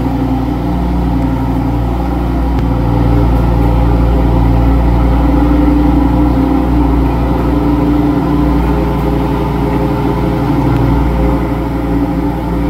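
Supercar engines idling steadily, with a deep, even note inside an underground car park.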